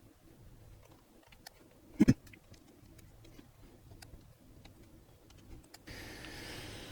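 Small screwdriver and tools working on a smartphone's frame screws: faint scattered ticks and clicks, with a sharp double click about two seconds in. A faint steady hiss comes in near the end.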